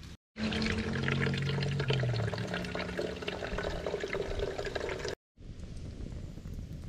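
Water pouring from a green plastic water tank into the narrow mouth of an olive military-style canteen, running for about five seconds and cutting off abruptly. It is followed by a quieter steady background with faint ticks.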